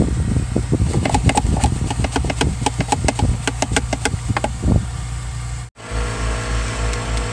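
Scrubbing and wiping inside a car's center-console cup holders: a quick, uneven run of scratchy strokes and small knocks on the plastic, over a steady low hum. The scrubbing cuts off about three-quarters of the way through, and an evenly pulsing low hum continues.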